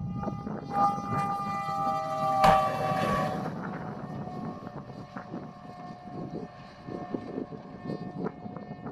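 A horn sounding a chord of several notes for a couple of seconds, then a single note held on more faintly. A sharp knock comes about two and a half seconds in, with smaller knocks later.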